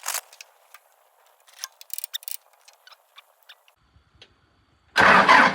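Scattered light clicks and ticks of hands handling a portable jump starter and its cables, with a quick cluster about two seconds in. About five seconds in, a sudden loud, dense noise begins.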